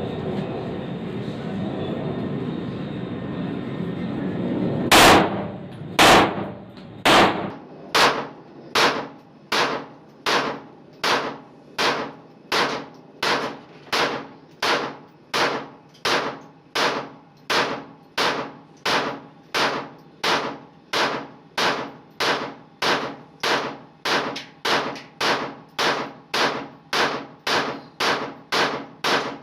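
TT (Tokarev) pistol in 7.62×25 mm firing single shots: after some seconds of steady background noise, a loud first shot about five seconds in, then more than thirty shots at a steady pace of roughly one every 0.7 seconds, each with a short ringing tail.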